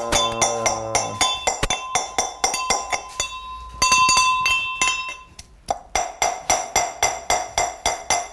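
Brass mortar and pestle being pounded: repeated metallic clinks with a ringing tail, about three strikes a second, easing off briefly a little past the middle. A short held musical tone sounds under the first strikes.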